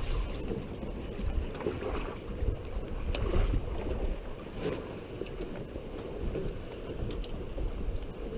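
Wind buffeting the microphone in low rumbles, over small choppy waves lapping against a moored boat's hull and the dock posts, with a few scattered light taps.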